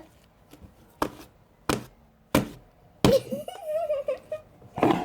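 Four sharp thunks, about two-thirds of a second apart, like knocks on a tabletop or container.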